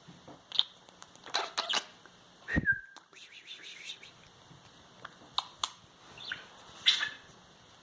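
Pet budgerigar chirping and chattering in short scattered bursts, with one whistled note sliding down in pitch and a few sharp clicks in between.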